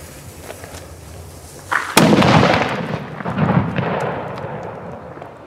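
A heavy flash-powder firecracker (a 'nitraat' banger) exploding with one loud bang about two seconds in, followed by a long rumbling echo that dies away over the next few seconds.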